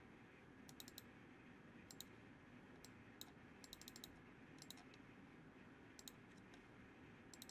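Faint computer mouse clicks, scattered and often in quick pairs, with a short flurry near the middle, over a low steady hiss.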